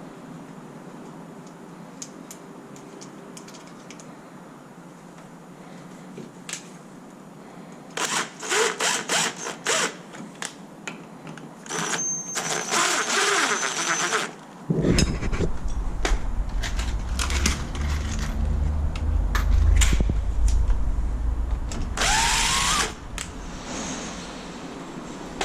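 Cordless power drill running in several short bursts, one of them rising in pitch as it spins up near the end. A steady low rumble sets in about halfway through.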